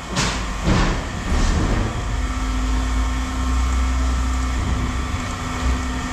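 A heavy vehicle engine running with a deep steady rumble, a few knocks in the first second and a half, and a steady hum joining about two seconds in.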